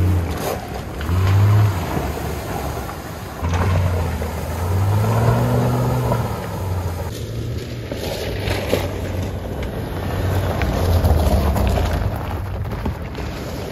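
Mitsubishi Pajero SUV engine running as it drives off-road, its pitch rising and falling with the throttle, over a steady noise of tyres on loose gravel and through shallow water.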